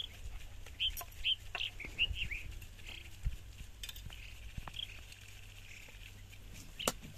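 Birds chirping: a quick run of short, high chirps in the first few seconds, then a softer, longer call, with a sharp click near the end.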